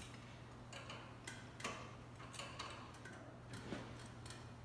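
Light, irregular metallic clicks and taps of hand tools being worked on an engine, over a steady low hum.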